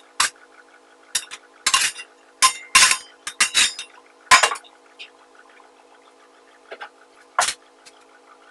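Slotted metal spatula scraping and clinking against a stainless steel pan as roasted vegetables are scooped out, a quick run of sharp scrapes and clinks in the first half, with one more clink near the end.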